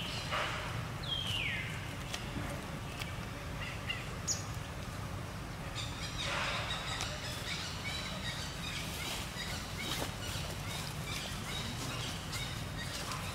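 Outdoor ambience of birds chirping, with short high chirps through the second half, over a steady low hum. A high call falls in pitch about a second in, and a louder cry comes at around six seconds, with light crackling of dry leaves.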